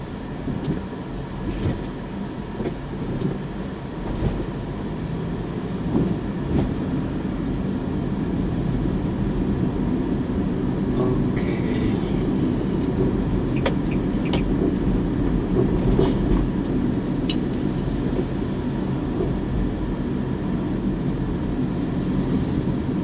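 Car driving, heard from inside the cabin: a steady low engine and tyre rumble that grows gradually louder, with a few light knocks and rattles.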